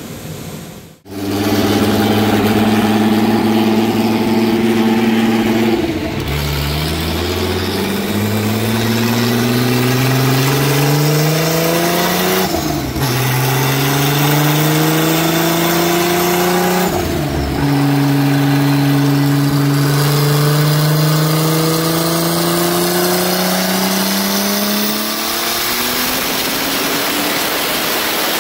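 Turbocharged VW VR6 engine running steadily, then revving up through the gears. The revs drop sharply at two gear changes, about halfway through and again some five seconds later, then ease off near the end.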